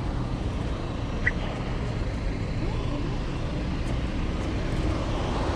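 Downtown street traffic: a steady low rumble of passing cars, with a short high chirp about a second in.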